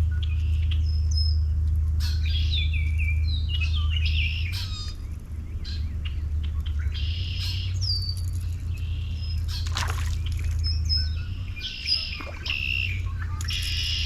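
Birds chirping and calling over and over, many short chirps and whistles, over a steady low hum.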